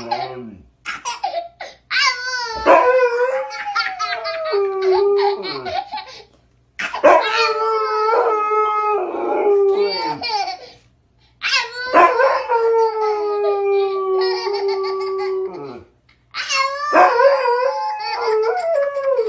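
Siberian husky howling in four long drawn-out howls, each falling away at its end, with short pauses between them. A toddler laughs in giggling shrieks with the howls.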